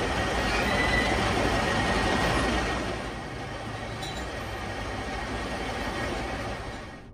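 Manual metal lathe turning a hardened steel shaft with a brazed carbide tool: steady machine running noise with the hiss of the cut as a curled chip comes off, louder for the first three seconds and then easing. The sound drops off sharply near the end.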